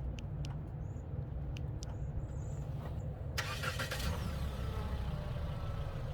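Mitsubishi SUV engine idling with a steady low rumble, just started by a remote starter. A hiss joins about three and a half seconds in.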